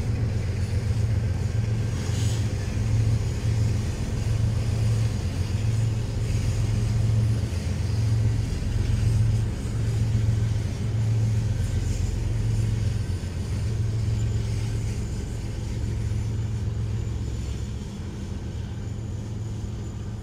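Diesel-electric freight locomotives passing close by, their engines running with a deep, pulsing drone that eases slightly near the end.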